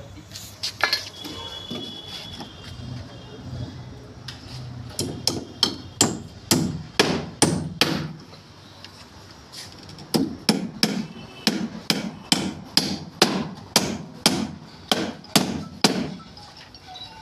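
Hammer nailing the timber boards of a wooden footing formwork box. A single blow comes about a second in, then two runs of quick, even blows at about three a second, with a short pause between them.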